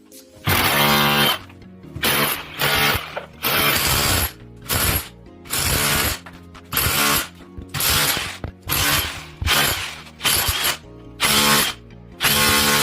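A power tool run in short bursts, about a dozen of them, each starting and stopping abruptly.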